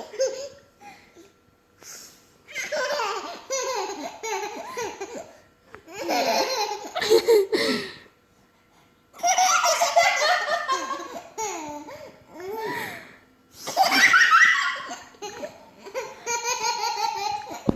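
People laughing hard in about five bouts with short pauses between, high-pitched laughter that comes in quick repeated pulses.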